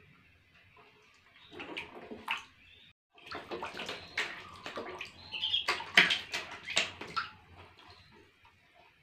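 Water splashing and sloshing in a plastic tub as a baby monkey plunges in and thrashes about among ducklings. There are a few short splashes at first, then heavy continuous splashing from about three to seven seconds in, which dies down near the end.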